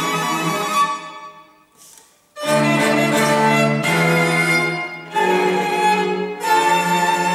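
A string quartet of violins and cello plays. The music fades out about a second in and breaks off briefly. All the instruments then come back in together on a held chord and move through new sustained chords about every second or so.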